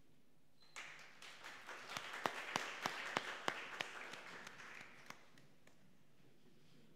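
Hand clapping from a small group of people. It starts about a second in, swells with a few loud single claps standing out, and dies away after about four seconds.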